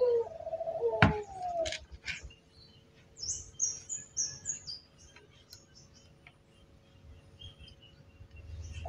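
A small bird chirping: a quick run of high, stepping chirps in the middle. Brief pitched tones and a sharp click come in the first two seconds.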